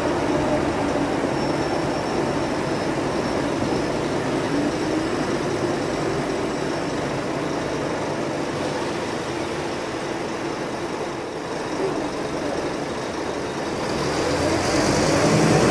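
Interior sound of a Scania K320UA articulated bus's diesel engine and drivetrain, a steady running drone with road rumble. It quietens a little in the middle, then rises in pitch and loudness near the end as the bus accelerates.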